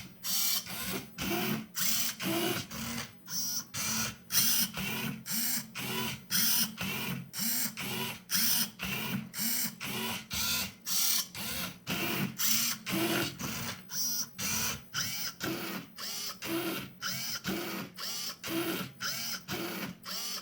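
Servo motors of a 3D-printed Otvinta cube-solving robot whirring in short bursts, about two a second, as its grippers turn and regrip a Rubik's Cube through the final moves of the solve.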